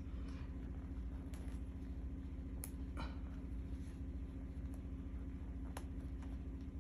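Steady low background hum, with a few faint clicks and rustles of hands handling a chunky crocheted hat to unfasten its pom-pom.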